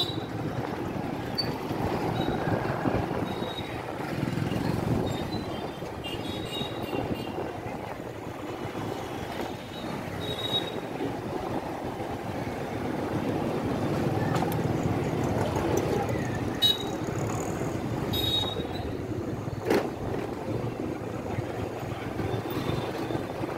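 Busy street-market ambience: steady traffic noise with background crowd chatter, and two sharp knocks in the last third.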